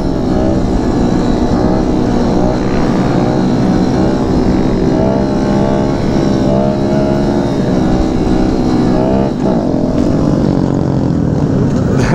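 Kawasaki Z125 Pro's small single-cylinder engine running under throttle in second gear, the revs rising and falling and climbing sharply about nine seconds in, with wind rushing over the microphone.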